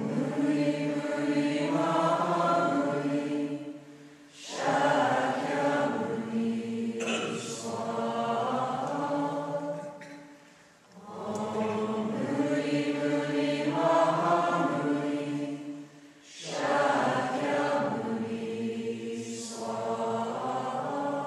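Several voices singing a slow chant in held chords, in phrases of about five seconds with short pauses for breath between them.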